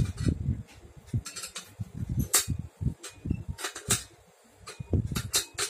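Irregular dull knocks and sharp metal clicks of a child's balance bike front wheel and fork being handled and fitted together, quieting briefly a little after four seconds.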